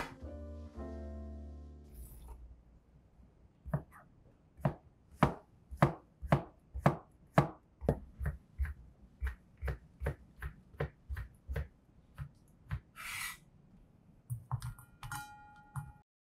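Chef's knife slicing a cucumber on a cutting board: a steady run of crisp knife strikes, about two a second, starting a few seconds in and cutting off near the end.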